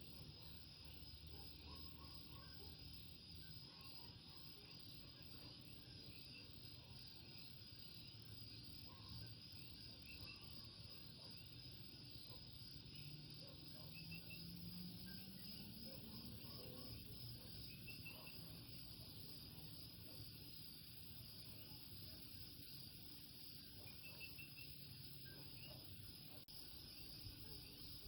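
Faint chorus of common coquí frogs mixed with insects: a steady high trill with short chirps scattered through it.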